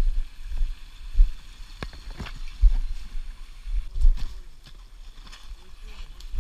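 Footsteps and rustling through forest undergrowth, with irregular heavy low thumps from the jostled body-worn camera and a few sharp snaps or clicks about two seconds in.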